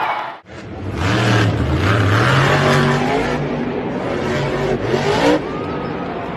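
Grave Digger monster truck's supercharged V8 revving hard, its pitch rising and falling several times as the throttle is worked. It cuts in suddenly about half a second in.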